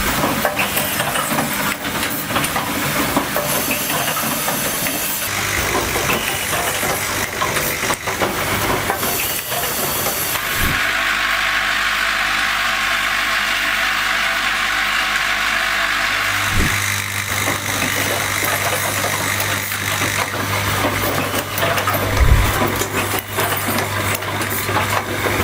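Automatic cable-holder terminal assembly machine running: a steady hum and hiss with repeated sharp clicks from its working strokes, and a steadier hissing stretch of about six seconds near the middle.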